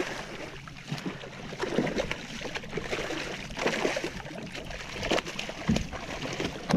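Shallow water splashing and sloshing in irregular bursts as two hooked trout thrash at the surface beside a wading angler.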